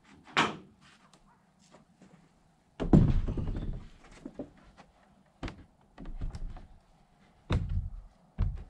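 Wooden board door being manoeuvred and set into its frame during a test fit: several separate wooden thunks and knocks, the loudest about three seconds in.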